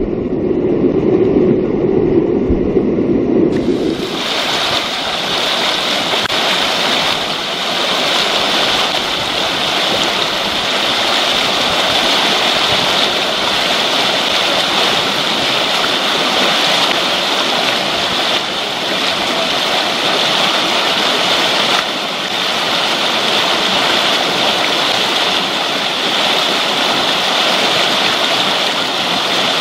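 Whitewater rapid rushing steadily over rocks. For the first four seconds the rush is muffled and low; then it opens into a loud, even hiss that holds.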